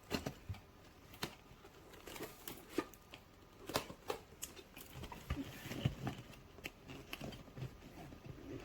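Packaging being handled: scattered light clicks and knocks with some rustling.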